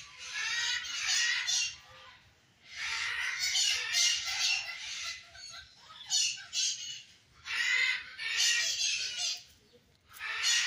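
Birds squawking loudly in repeated harsh bursts of one to two seconds, with short pauses between them.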